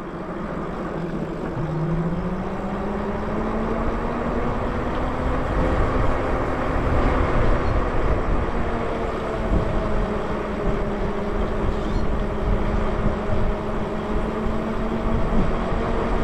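Electric bike hub motor whining under power, its pitch rising as the bike speeds up about two seconds in and then holding steady, over low wind rumble on the microphone.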